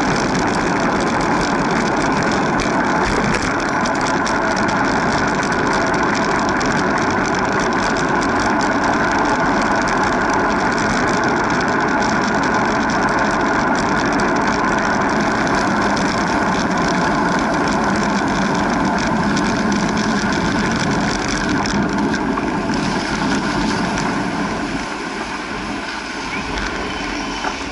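Steady rush of wind and road noise on a camera riding along a city street, with traffic around it. It eases off in the last few seconds as the ride slows to a stop.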